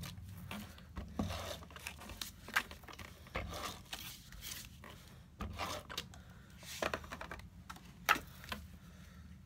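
ATG adhesive tape gun drawn in short strokes along a cardstock panel, the tape rasping off and tearing, along with paper being handled and pressed down. The rasps and clicks come scattered and short, with one sharp click about eight seconds in.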